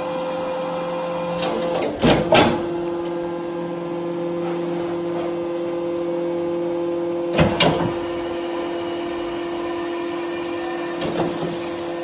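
Hydraulic scrap-metal baler running: a steady hum from its hydraulic power unit that steps down in pitch about two seconds in. Loud heavy clanks come about two seconds in and again at about seven and a half seconds, with fainter knocks near the end.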